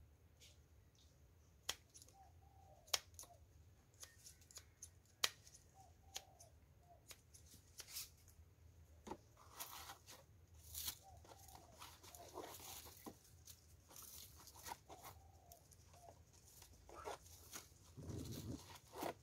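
Near silence: quiet courtyard ambience with a few faint sharp clicks and faint short calls every few seconds, and some low rustling near the end.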